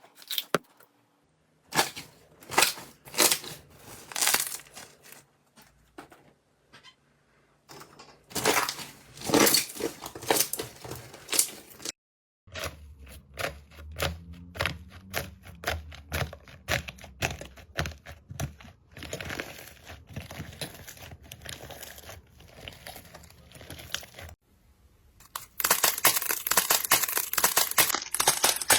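Slime being squeezed and pressed by hand, giving runs of sharp crackles and pops in several separate clips, with a denser, louder crackling stretch near the end.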